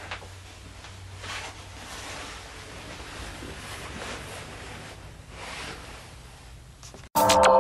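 Low room tone: a steady hiss with a faint low hum and a few soft swells of noise. About seven seconds in it cuts suddenly to loud music.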